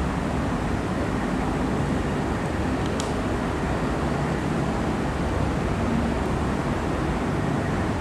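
A steady background rumble and hiss, with one sharp click about three seconds in: a metal press stud snapping shut on a cloth dressing frame.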